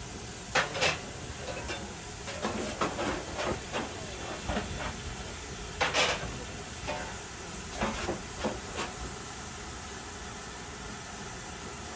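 Steam hissing steadily from a standing Bulleid West Country class Pacific. Irregular sharp knocks and puffs come over the first nine seconds, the loudest about six seconds in, then only the hiss remains.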